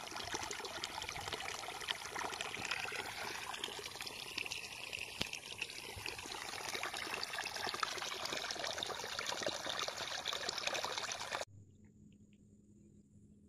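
Water pouring from an irrigation pipe into a flooded furrow between tomato rows, a steady splashing rush. It cuts off suddenly about eleven seconds in.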